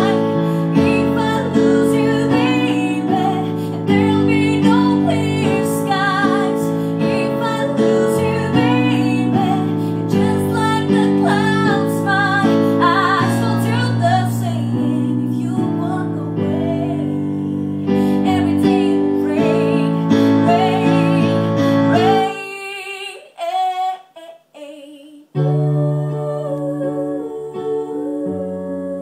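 A woman singing a slow pop ballad with vibrato, accompanying herself on a digital keyboard with a piano sound, playing steady chords. About 22 seconds in, the keyboard and voice drop out for roughly three seconds, then resume more softly.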